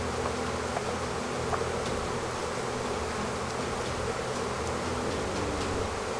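A mass of honeybees buzzing steadily as they pour out of an opened hive, a sign of an agitated, crowded colony.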